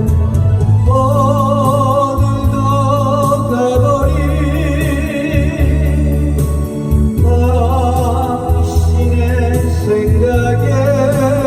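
A solo singer holding long notes with vibrato over backing music with a heavy bass line and a steady beat, in a Korean song.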